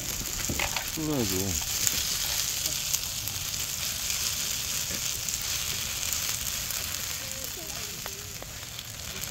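Rice and grilled beef tripe sizzling on a hot griddle pan as fried rice, stirred and spread with a spatula, with a few light clicks of the spatula on the pan.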